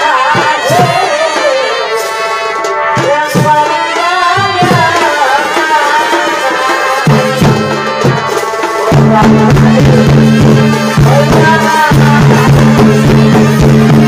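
Live Chhau dance music: drums beating under a wavering melody. A low sustained drone comes in about seven seconds in, and the music grows louder about two seconds later.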